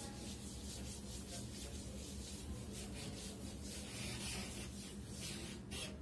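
Blackboard duster rubbing over a chalkboard, wiping off chalk with repeated back-and-forth strokes.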